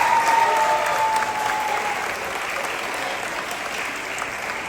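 An assembly audience of students and staff applauding, the clapping gradually easing off.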